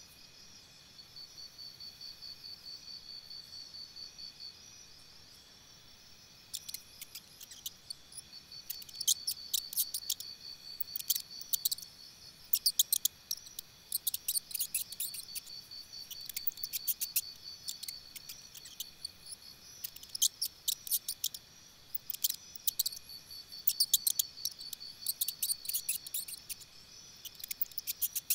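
Insects trilling: several steady high tones with a pulsing trill that is louder near the start. From several seconds in, clusters of sharp high clicks come in short runs, louder than the trilling.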